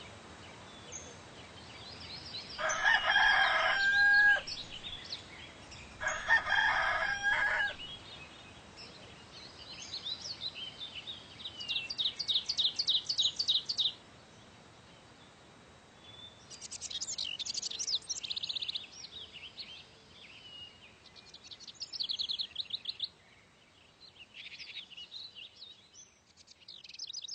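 A rooster crows twice in the first few seconds, each crow lasting between one and two seconds. Small songbirds chirp throughout, and from about ten seconds in they sing in runs of quick, high, repeated notes.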